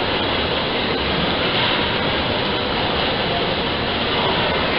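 Steady, even mechanical running noise of an early 19th-century rolling mill beam engine in motion, its beam, flywheel and spur gearing turning, with no distinct knocks.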